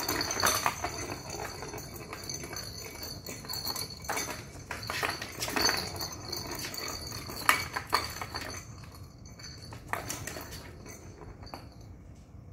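Small balls rolling, rattling and clicking around the plastic track under a round cardboard cat scratcher as a kitten bats at them, in irregular knocks.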